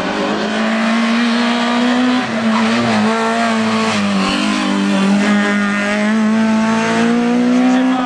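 Peugeot 106 race car's engine at high revs, its note rising steadily, with a brief dip about two seconds in and a sudden drop near the end as it shifts up.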